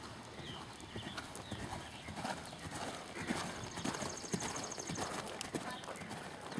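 Hoofbeats of a horse cantering on soft dirt arena footing, a run of dull strikes that grows loudest around the middle as the horse passes close by.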